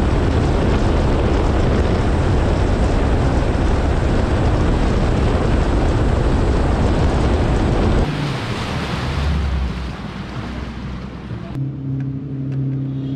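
Bass boat running fast on open water: the outboard motor under a heavy rush of wind on the microphone and the splash of the wake. About eight seconds in the sound drops and changes, and near the end it gives way to a quieter steady low hum.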